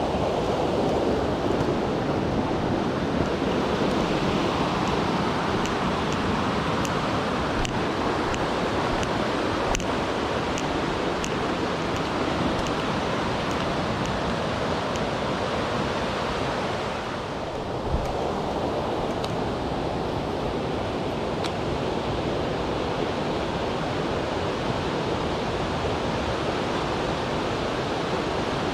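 Rushing water of a mountain stream running steadily, with a few faint ticks and one soft knock.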